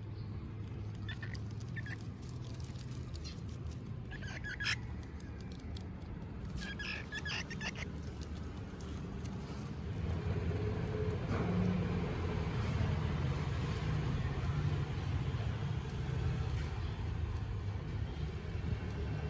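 Baby palm squirrels giving a few short, high squeaks in the first half, over a steady low background rumble.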